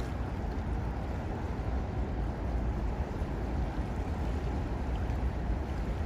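Wind buffeting the microphone: a steady low rumble with a soft noisy wash above it, and no duck calls.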